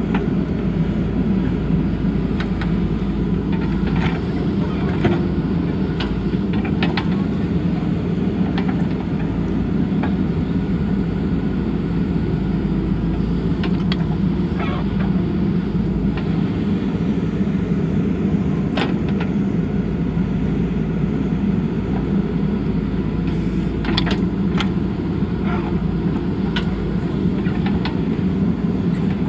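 JCB backhoe loader's diesel engine running steadily under work, with occasional sharp knocks and clanks from the machine.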